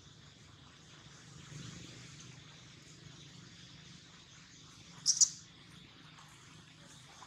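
Outdoor ambience of a steady, high insect-like hiss. About five seconds in comes one brief, sharp, high-pitched double chirp, much louder than the rest.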